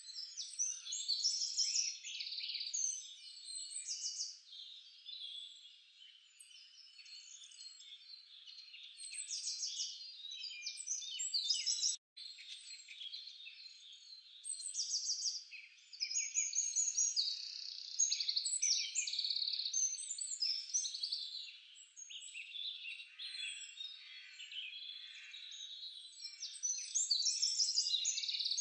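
A dense chorus of many small birds chirping and trilling, high-pitched and continuous, briefly cut off about twelve seconds in.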